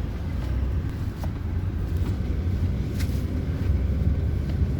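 Steady low rumble of a moving road vehicle, with a couple of faint clicks.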